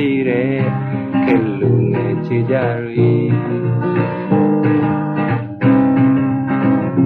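Song accompaniment on strummed acoustic guitar playing chords that change every second or so, with a melody line gliding in pitch near the start.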